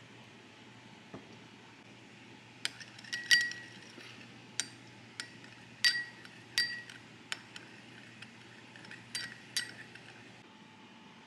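Metal spoon clinking against a small glass bowl while stirring sauce: about a dozen irregular, sharp clinks with a brief glassy ring, starting about two and a half seconds in.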